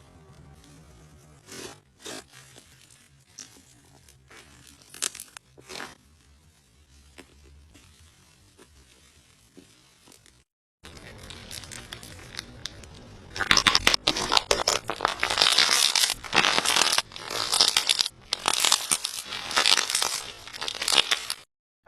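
Slime being squeezed and pressed by hand, crackling and popping: a few soft pops in the first half, then from about halfway on a run of loud crackly squishes in repeated bursts.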